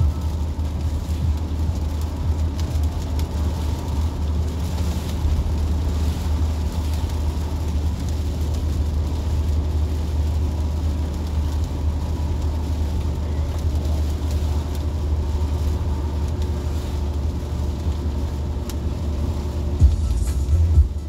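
Steady low rumble with an even hiss over it, heard from inside a car in heavy rain, with a few louder bumps near the end.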